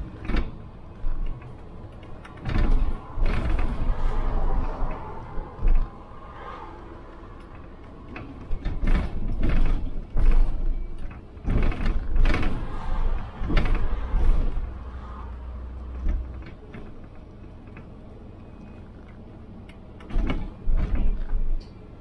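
City bus in motion, heard from the driver's cab: low rumble with irregular bursts of rattling, knocking and creaking from the bus body and fittings, and a quieter stretch late on.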